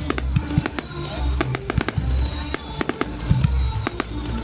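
Fireworks going off: a rapid, irregular string of sharp bangs and crackles over deep rumbling booms, with a high wavering tone running through.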